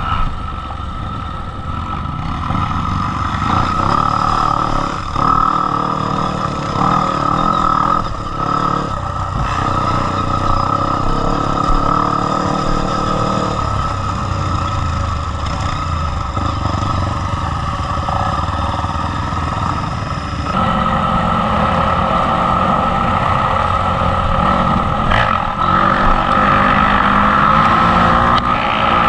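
Off-road motorcycle engine heard from on board while riding a dirt trail, its pitch stepping up and down with throttle and gear changes and getting louder about two-thirds of the way in, with a few short knocks from the bike over bumps.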